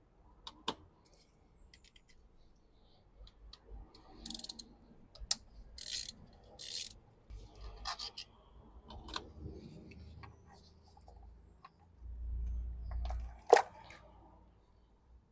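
Scattered metallic clicks, clinks and short scrapes of hand tools and parts as the coil pack's T40 Torx screws are undone and the coil pack is worked loose. There is a low rumble about twelve seconds in, then a sharp click, the loudest sound.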